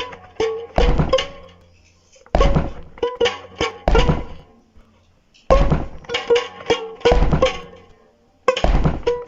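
Music: a repeating phrase of sharp struck or plucked notes over a low thud, each cluster lasting about a second and a half, coming back about every three seconds with brief pauses in between.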